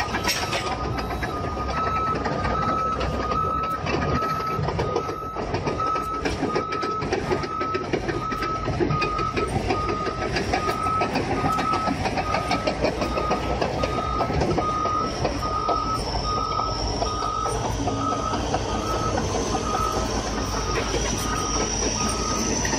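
Large crawler bulldozer's diesel engine running with its tracks clattering, while its back-up alarm beeps steadily about twice a second: the machine is in reverse.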